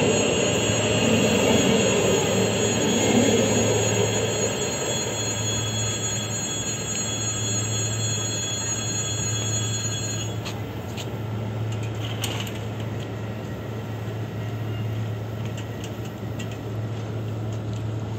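Aeroexpress double-deck electric train passing and receding. Its rolling noise fades over the first few seconds, while high steady tones with a wheel-squeal character hold on and stop suddenly about ten seconds in. After that come a low steady hum and a few faint knocks.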